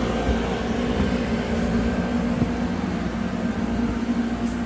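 Steady mechanical hum with a constant low drone, like a running fan or air handler.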